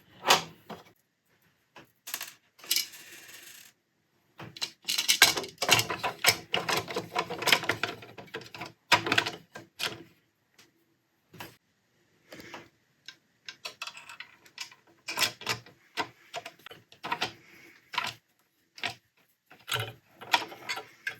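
Irregular clicks, knocks and light clatter of hard plastic and metal parts of a Hobbylook 794 overlocker being handled and fitted back together, busiest in a burst a few seconds in, then sparser.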